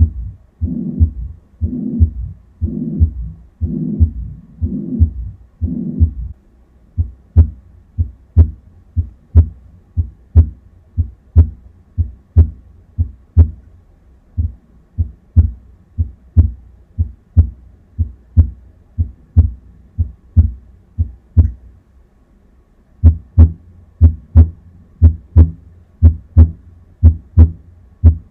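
Simulated heart sounds of mitral regurgitation from a cardiac auscultation simulator, at about one beat a second. For the first six seconds each beat is filled by a loud whooshing systolic murmur. After that the beats are sharper with little murmur; they stop briefly about 22 seconds in and come back louder.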